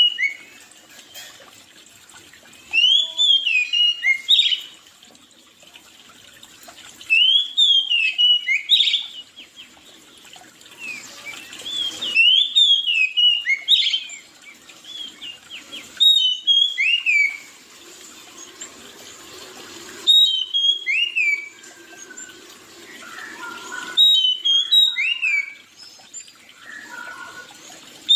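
A songbird singing a short phrase of high whistled notes that slide downward, repeated about every four seconds, with softer chirps in between.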